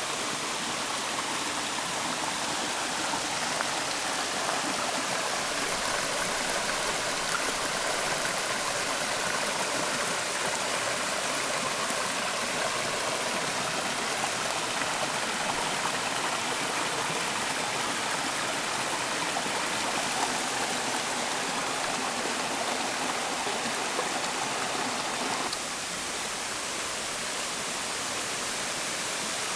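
Shallow mountain stream rushing and splashing over rocks and small cascades: a steady, even rush of water, a little softer near the end.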